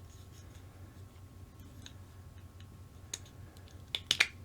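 A few small sharp plastic clicks near the end as the halves of an RC truck's plastic gearbox case are fitted together, over a faint steady low hum.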